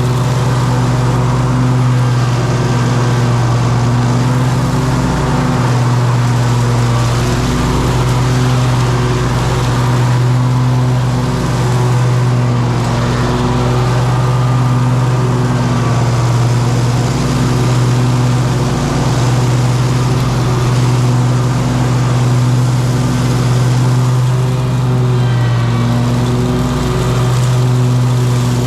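An engine running steadily at one constant speed, with a strong low hum and no revving.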